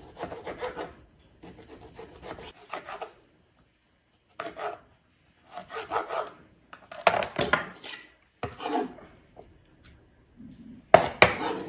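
Kitchen knife dicing a firm tomato on a cutting board: runs of quick slicing and rubbing strokes with short pauses between. Sharper scrapes of the blade across the board come near the end, as the diced tomato is moved off the board.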